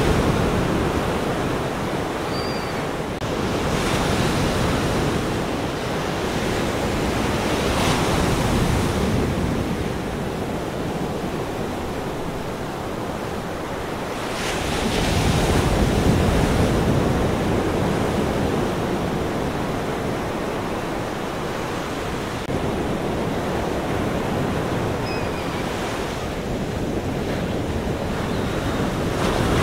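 Ocean surf washing ashore: a continuous rush of waves that swells louder as each wave breaks, several times over.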